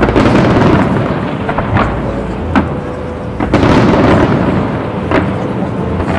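Fireworks going off in volleys: a dense rumbling barrage at the start and again about three and a half seconds in, with single sharp bangs in between.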